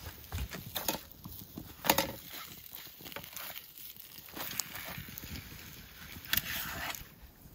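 Scattered light clicks and knocks as food is laid out on a wire campfire grill, the loudest about two seconds in.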